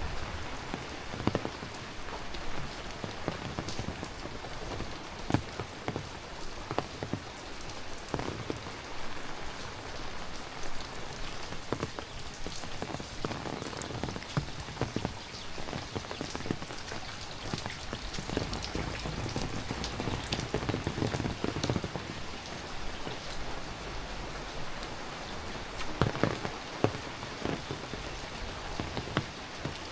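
Heavy rain falling: a steady hiss full of the close patter of individual drops striking surfaces, with a few louder drops standing out now and then.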